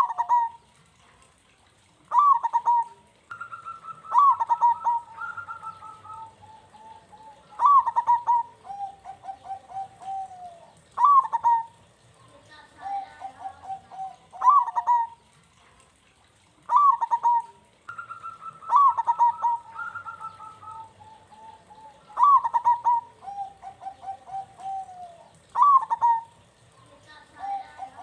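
Zebra doves (perkutut) singing: repeated cooing phrases every two to three seconds, each opening with a sharp accented note and running into a string of quick, even coos, with a second bird's higher phrases overlapping now and then.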